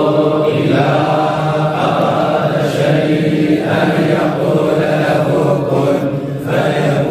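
A group of men chanting the Quran together in unison, a slow, continuous collective recitation, with short breaks between phrases about three and six seconds in.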